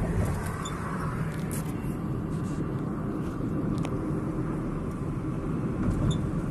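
Steady road and engine noise heard inside a moving car's cabin, a low, even rumble with a few faint ticks.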